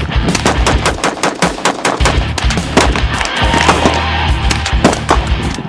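AR-15 rifle firing rapid shots in quick succession, several a second, with music underneath.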